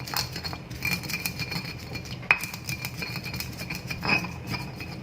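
Pestle grinding and tapping in a mortar (ulekan), crushing andaliman pepper: a busy run of small scrapes and clinks with one sharper knock about two seconds in.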